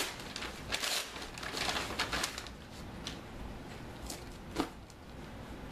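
Packaging being handled and opened to take out a new hat: a run of crinkling and crackling for the first two seconds or so, then a few scattered clicks, the sharpest about four and a half seconds in.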